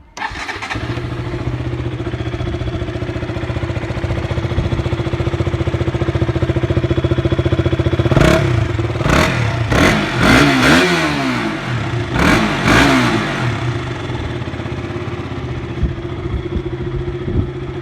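KTM 200 single-cylinder motorcycle engine on its stock exhaust, idling steadily, then blipped through a quick run of about seven revs, each rising and falling, before settling back to idle.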